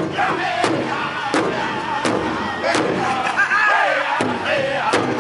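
Powwow drum group: several men striking a large shared drum together in unison while singing loudly in high voices. The drumbeat slows, then drops out for about two seconds in the middle while the singing carries on, and comes back near the end.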